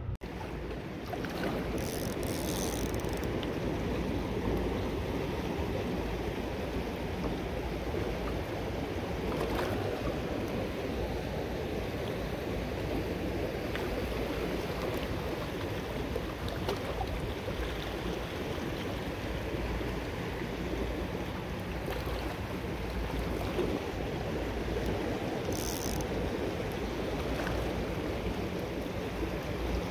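Steady rushing of fast river current, a dense, even water noise with no rhythm or change in level.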